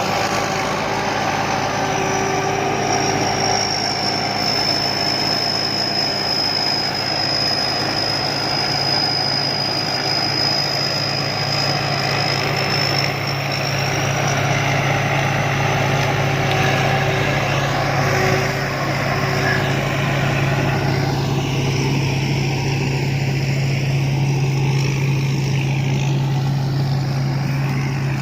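Rice combine harvester running steadily: a constant engine hum mixed with the noise of its machinery, and a high whine through the first half that sags a little in pitch and comes back up.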